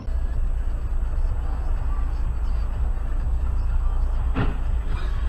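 Dashcam audio recorded inside a moving car: steady low road and engine rumble, with one short sharp knock about four seconds in.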